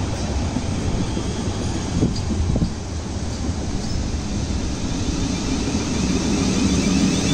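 Siemens Desiro Class 450 electric multiple unit moving slowly along the platform, a steady rumble of wheels and running gear that grows louder near the end.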